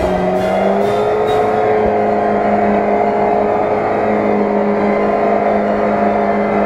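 Lada Niva engine held at high, steady revs as the car churns through deep mud, its pitch dipping briefly at the start and then climbing slowly.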